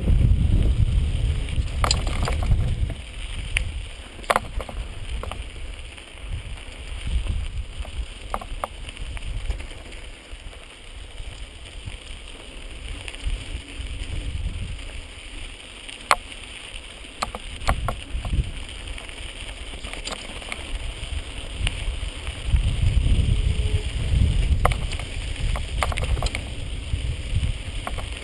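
Wind buffeting a GoPro's microphone while a mountain bike is ridden over rocky dirt singletrack, a low rumble that swells near the start and again near the end. Short clicks and rattles come from the bike over the rough trail.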